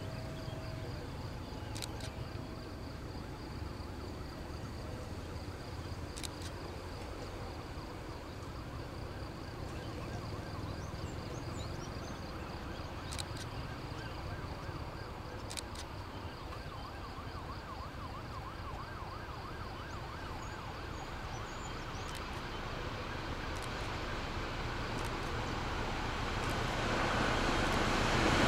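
Diesel-hauled passenger train approaching along the line. A low rumble grows steadily louder over the last few seconds as the locomotive nears, under a faint steady high-pitched tone and a few light clicks.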